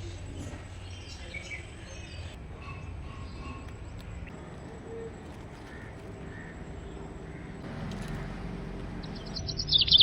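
Rural outdoor ambience: a faint low steady hum with scattered distant bird chirps. Near the end a bird starts a loud, rapid, high chirping trill.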